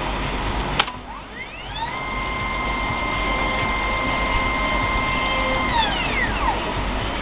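Stepper motors on a JC3A stepper driver: a sharp click, then a whine that rises in pitch as the motors speed up, holds steady at the 1500 rpm test speed for about four seconds, and falls in pitch as they slow to a stop. A steady hiss runs underneath.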